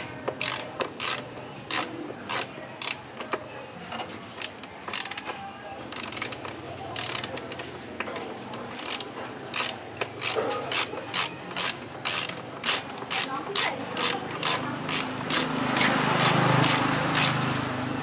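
Ratcheting driver with a socket bit clicking as it turns a bolt in a motorcycle's body panel, in runs of sharp clicks a few per second, quicker and more even in the second half. A low rumble swells up and fades near the end.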